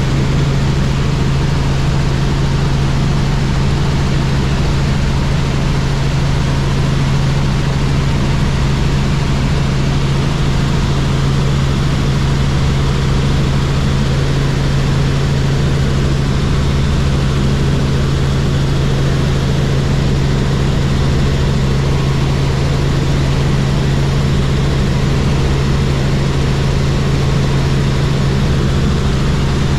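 Robinson R44 Clipper helicopter in flight: a steady drone of engine and rotors with a constant low hum, unchanging throughout.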